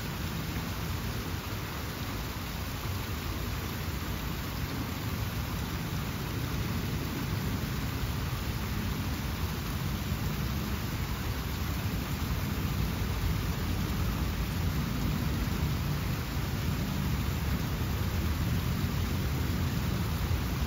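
Water of a rockwork fountain splashing and cascading steadily: an even rush with a deep low rumble, growing slightly louder toward the end.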